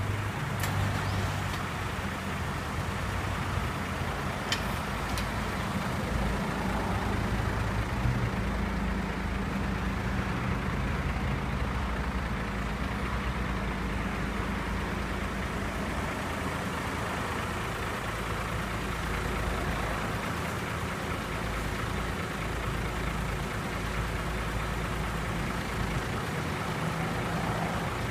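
Truck engine running steadily to power the hydraulics of a truck-mounted knuckle-boom crane as its boom is raised and extended. There are a few short clicks in the first five seconds.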